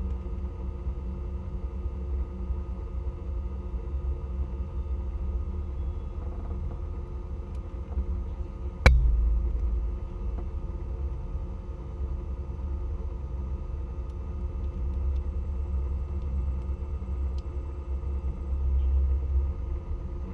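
Rally car engine idling at a standstill, heard from inside the cabin as a steady low rumble. About nine seconds in comes a single sharp knock, the loudest sound, and the rumble is louder just after it and again near the end.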